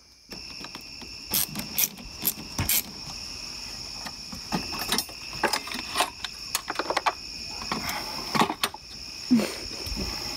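Crickets chirping steadily, with irregular clicks, taps and light clatter of hands and tools working on parts in a car's engine bay.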